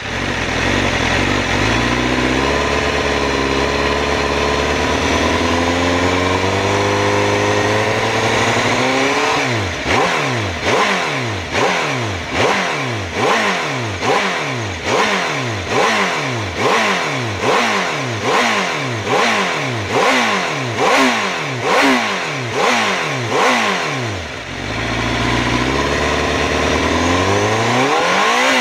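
Honda CBR1000RR-R SP's inline-four revved in neutral through an Akrapovič exhaust: the revs climb slowly and steadily for about nine seconds, then a long run of quick throttle blips at about one and a half a second. It drops back near idle and starts climbing again near the end.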